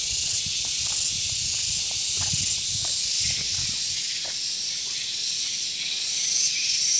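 Cicada chorus: a steady, high-pitched hiss that flutters slightly.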